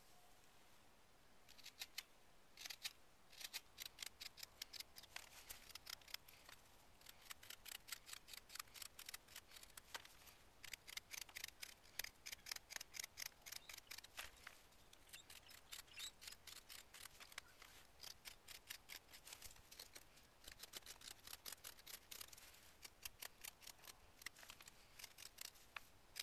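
Mora spoon knife (hook knife) slicing shavings out of the bowl of a trembling aspen spoon: a long run of short, crisp cuts, about two to three a second, pausing briefly twice.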